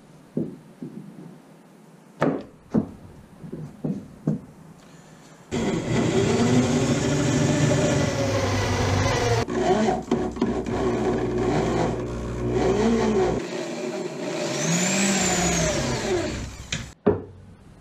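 A few knocks and taps, then an electric drill driving stainless screws into a wooden mast step brace, its motor speeding up and slowing in spells for about eleven seconds, with short pauses between screws; it stops near the end with one more knock.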